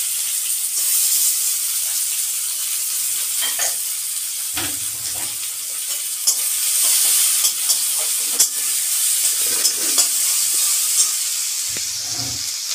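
Sliced onions sizzling in hot mustard oil in a metal kadai, a steady frying hiss. A flat metal spatula stirs them, scraping and clicking irregularly against the pan, with a couple of duller knocks.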